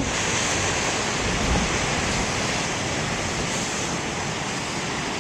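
Ocean surf from a large storm-driven swell washing ashore, a steady rush of water that slowly fades.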